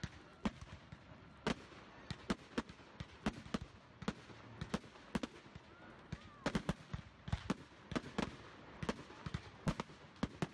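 Aerial fireworks going off: a rapid, irregular run of sharp bangs and cracks from shells bursting, about three a second, over a steady background hiss.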